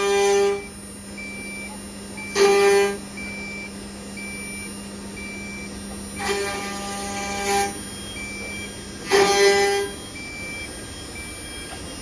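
Eight-spindle CNC wood router carving rotating wooden blanks: its spindles give a steady hum, and a louder, high pitched whine swells in four bursts as the bits cut into the wood.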